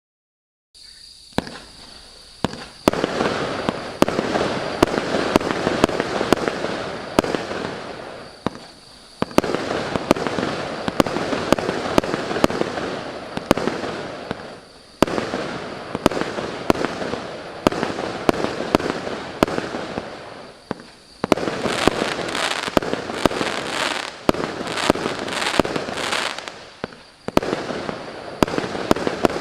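Maxsem MC139 firework going off: sharp shot reports roughly once or twice a second over a dense rushing noise, in several volleys with brief lulls about every six seconds.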